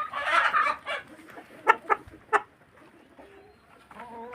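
Kienyeji hens clucking: a short burst at the start, a few quick sharp clucks about two seconds in, and a longer, drawn-out call near the end.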